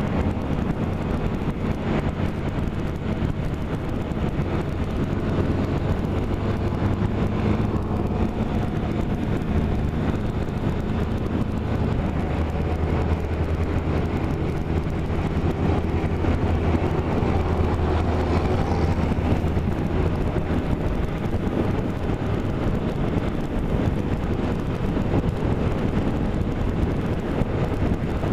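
A motor vehicle running and moving, its engine a low, steady hum with road and wind noise on the microphone; the engine note shifts slightly in pitch as it goes.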